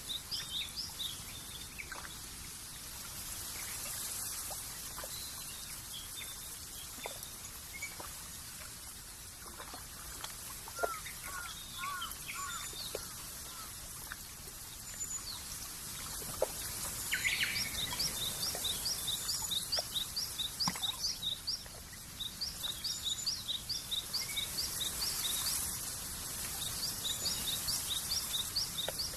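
Birds chirping over a steady background hiss of outdoor ambience. One bird repeats quick high chirps about four a second in several runs through the second half, with scattered other calls between.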